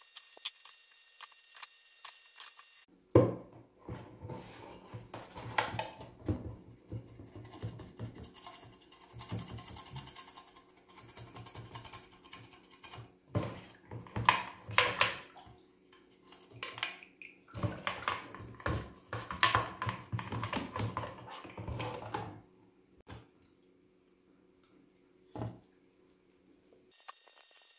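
Irregular clattering, knocking and rubbing of small hard parts being handled, over a low steady hum, starting about three seconds in and dying away near the end.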